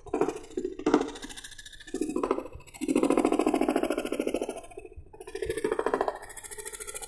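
Handheld electric jigsaw cutting a carving pattern out of a teak board, its reciprocating blade buzzing in stop-start stretches as the cut is steered, with short dips between them.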